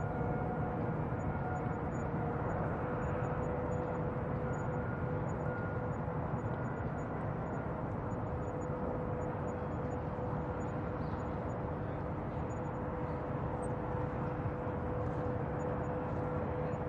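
Bayside ambience field recording: a steady low rumble of distant machinery and traffic noise, with a constant mid-pitched hum running through it.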